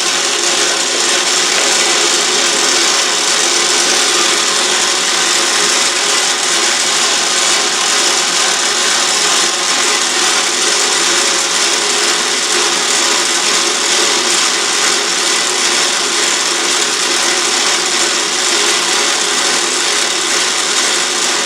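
Autobox 8x16 mini lathe running steadily, its motor and gearing giving a steady hum of several tones under the hiss of the tool cutting the stock. The tool is also cutting on the return pass, which it shouldn't: something in the setup is not right.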